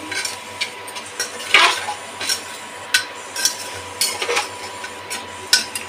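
A metal spoon stirs chopped tomatoes and masala in a metal pressure cooker, clinking and scraping against the pot's sides at irregular intervals, with a longer scrape about a second and a half in.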